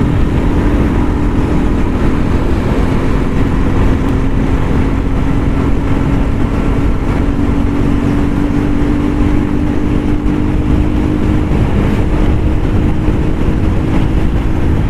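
Vehicle running at a steady speed on the road, with a constant engine hum over low road and wind rumble.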